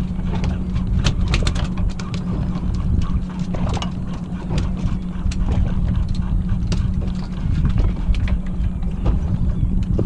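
Boat motor running with a steady low hum, while water slaps and splashes against the hull in irregular knocks.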